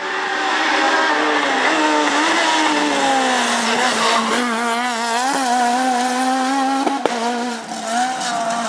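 Renault Clio S1600 rally car's engine running hard at high revs, its pitch dipping and climbing with gear changes and wavering for a stretch in the middle. A single sharp crack comes about seven seconds in.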